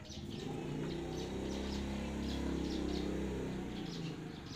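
A machine motor hums steadily, builds up just after the start and dies away about four seconds in, with birds chirping faintly.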